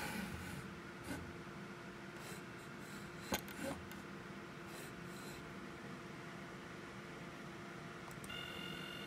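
A pencil scratches briefly against a wooden snare drum shell at the start, followed by a few light clicks and knocks. About eight seconds in, a steady high whine starts as the CNC stepper motor on the lathe indexes the shell to the next lug position.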